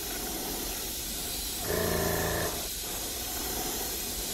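Airbrush spraying orange paint onto a crankbait's belly: a steady hiss of compressed air and paint, with a louder spurt carrying a steady hum about two seconds in that lasts under a second.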